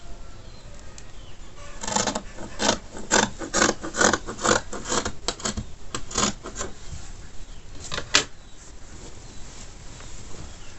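Scissors snipping through folded fabric to cut out a neckline: a quick run of snips, about three a second, starting about two seconds in and lasting some four seconds, then two more snips near the end.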